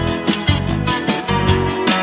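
Background music: a rock song with guitar and a steady beat.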